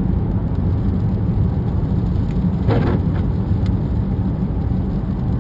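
Steady low rumble of road and engine noise inside a car's cabin while driving on a wet highway, with one short sharper noise a little past halfway.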